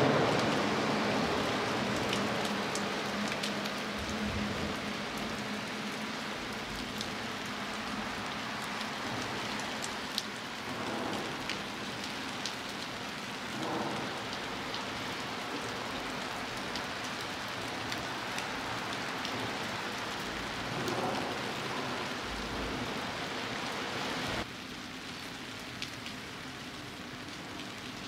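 Steady rain falling, a constant hiss with scattered drops ticking close by. About three-quarters of the way through it drops suddenly to a somewhat quieter level.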